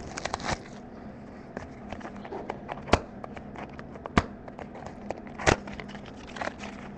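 Hands opening trading card packaging: scattered light crackles and clicks of wrapper and cardboard, with three sharper clicks about three, four and five and a half seconds in, over a faint steady hum.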